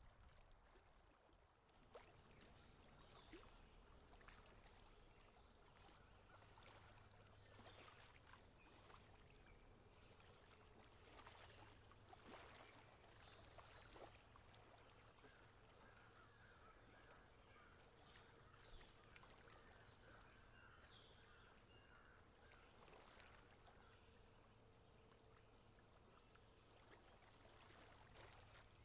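Faint riverside ambience, close to silence: a low steady hum with scattered soft clicks, and a bird calling in a quick series of repeated notes through the middle.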